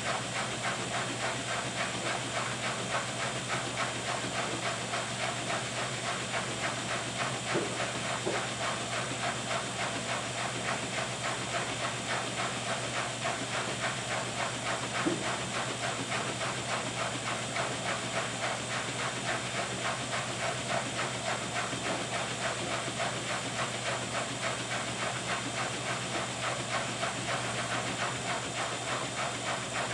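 Miele Touchtronic W3033 front-loading washing machine spinning its drum at speed: a steady whooshing hiss over a constant low hum, with a fast, even pulse from the turning drum. A light tick sounds about halfway through.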